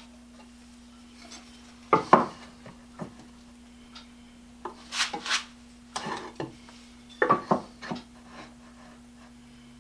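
Wooden knocks and clatter from handling pieces of poplar and hand tools on a workbench, in a few short clusters, with a pair of brief scrapes near the middle.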